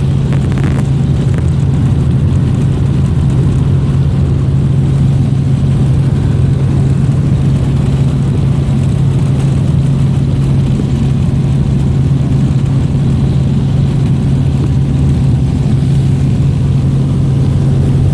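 Robinson R44 helicopter in flight, heard from inside the cabin: a loud, steady drone of its piston engine and rotors with a constant low hum.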